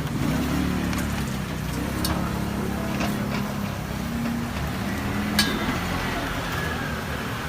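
A motor running with a low, wavering hum over street noise, with a few sharp clinks, the loudest about five and a half seconds in.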